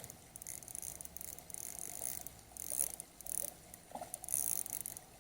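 Fishing reel being cranked, a faint clicking and ticking in uneven spurts, as a small hooked panfish is reeled in.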